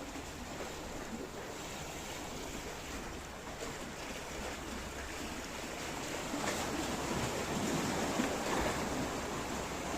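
Sea waves washing onto the beach, a steady rush that swells louder in the second half.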